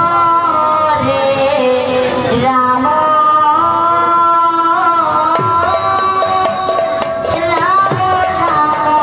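Sung devotional kirtan music: a woman's voice holding long, wavering notes over instrumental accompaniment, with a hand drum playing low strokes that slide down in pitch every couple of seconds.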